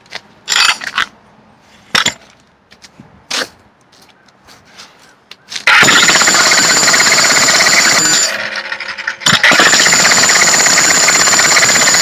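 A few sharp knocks, then about six seconds in a corded Hercules electric jackhammer starts breaking concrete: loud, rapid, continuous hammering. It stops for about a second, leaving only the motor's hum, then resumes.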